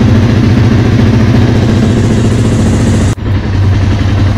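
Motorcycle engine idling steadily while warming up after a cold start, left unrevved. There is a momentary gap a little past three seconds in.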